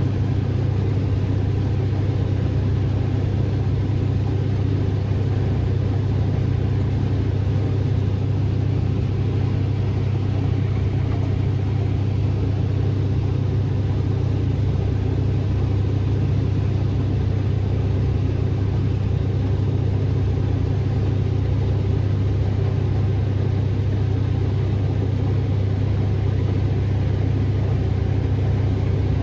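Diesel engine of a combine or tractor running steadily at constant speed, a loud, unchanging low drone.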